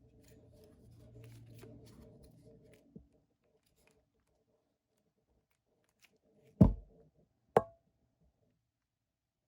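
Faint handling rustle and a click, then two sharp knocks about a second apart, each with a short ring.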